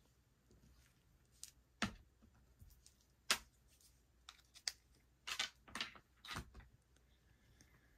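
Irregular light clicks and knocks of hard plastic GoPro camera accessories being handled, about a dozen short sharp clicks, most of them in the middle seconds.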